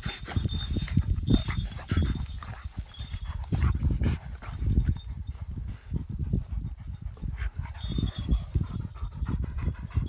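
Kangal dog panting hard in quick, uneven breaths, out of breath after rough play.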